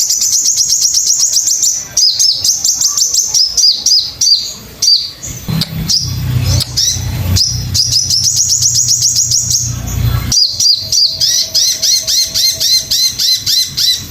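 Crested jay (sogon) calling: rapid runs of short, high, downward-sweeping notes repeated many times a second, with brief breaks between runs. A low rumble sits underneath from about five to ten seconds in.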